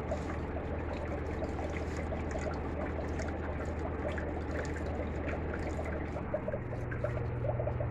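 Water trickling and bubbling in an axolotl aquarium over the steady low hum of its pump. The hum shifts a little higher about six and a half seconds in.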